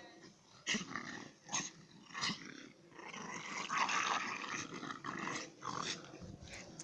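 Two dogs growling as they play-fight, with a few short sharp sounds in the first couple of seconds.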